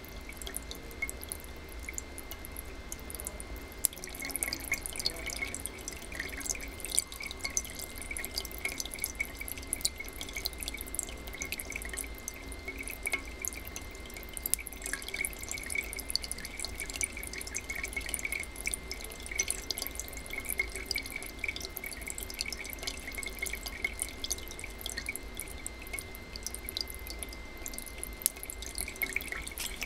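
Thin streams of water breaking into drops and falling into the tin cans of a Kelvin water dropper electrostatic generator: fast, continuous dripping and splashing. Two sharper ticks stand out, about four seconds in and near the end.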